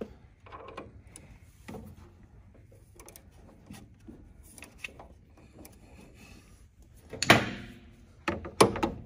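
Small metallic clicks and rattles as a hex extractor bit is fitted, then one hard hammer strike about seven seconds in and a few quicker taps near the end: the extractor being driven into a stripped hex screw in a planer's cutterhead to seat it.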